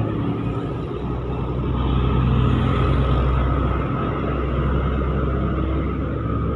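Road traffic: diesel box trucks and motorcycles passing, a steady low engine rumble.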